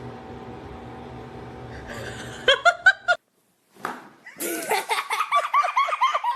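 A person laughing: a short burst of giggling about two and a half seconds in, then, after a brief gap, a longer run of rapid laughter.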